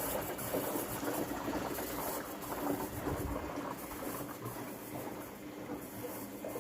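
Steady rush of running water with a low machine hum underneath, as from an appliance running with water flowing through it.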